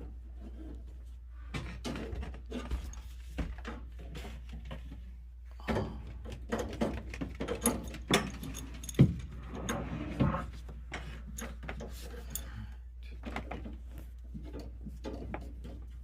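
Irregular clicks, knocks and rattles of hands and tools working a copper water line loose and fitting a new one, busiest in the middle, over a steady low hum.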